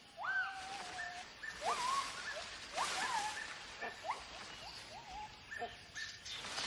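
White-handed gibbon calling: a quick run of whooping notes, about two a second, each sweeping up and easing back down. It is a territorial call, made while the male drives an intruder away.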